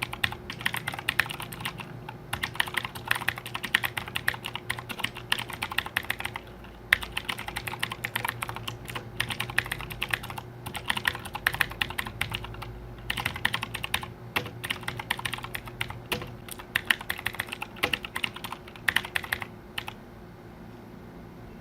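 Fantech MK883 mechanical keyboard being typed on: fast runs of key clicks with brief pauses, stopping shortly before the end.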